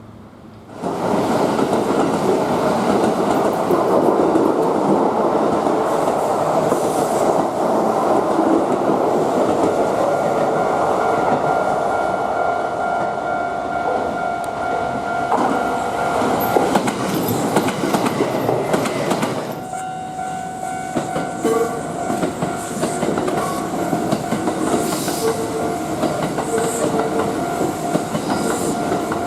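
A Kintetsu Osaka Line train running past over a level crossing, loud from about a second in. The train noise drops away after about twenty seconds, leaving the crossing's warning bell ringing steadily over quieter rail noise.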